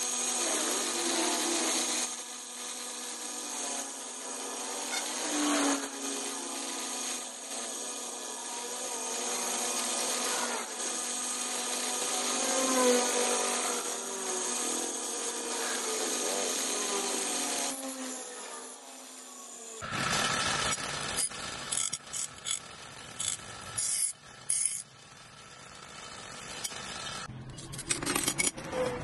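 Bench grinder running steadily while a small steel part is pressed against the spinning wheel and ground, the pitch of the contact wavering. About two-thirds of the way through this gives way to flat steel pieces clinking and sliding against one another on a wooden board, in short sharp knocks.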